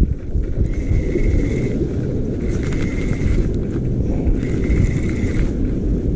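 Wind buffeting the microphone with a steady low rumble. Over it, spells of rapid clicking about a second long come roughly every two seconds.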